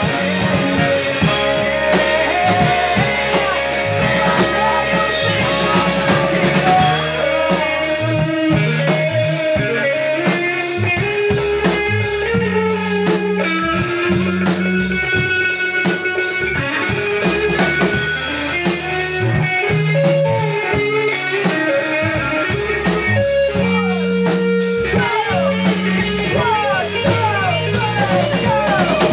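A rock band playing live: electric guitar over bass and drum kit, with no singing heard.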